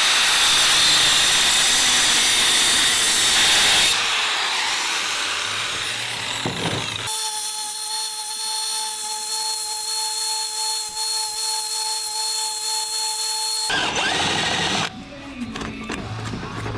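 DeWalt angle grinder with a cut-off wheel cutting metal square tubing held in a vise, then a bench belt grinder running with a steady whine as a metal piece is ground on the belt. A few clicks and knocks near the end.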